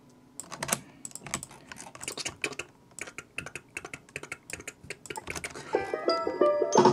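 Fast, irregular typing on a computer keyboard, the keys clacking close by. Near the end, music begins with a few short notes.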